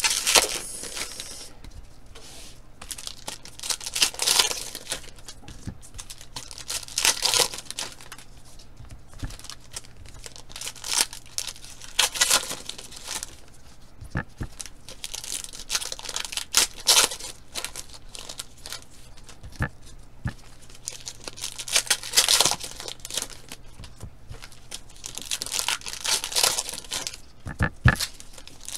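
Foil trading-card pack wrappers being torn open and crinkled, in short bursts every few seconds.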